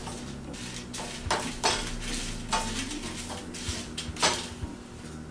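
Wooden spatula stirring dried chiles de árbol around a stainless-steel frying pan while they toast in a little oil: a series of irregular scrapes and knocks against the pan.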